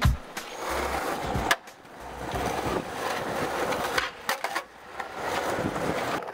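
Skateboard wheels rolling over rough concrete, broken by several sharp clacks of the board's tail and wheels hitting the ground as the skater pops and lands tricks.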